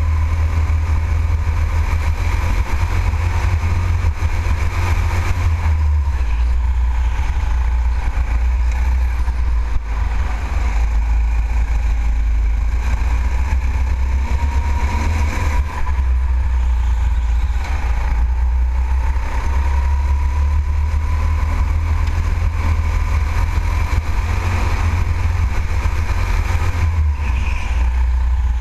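Go-kart driven around an indoor track, heard from a camera mounted on the kart: a loud, continuous low rumble with a thin whine that rises and falls with the kart's speed through the corners.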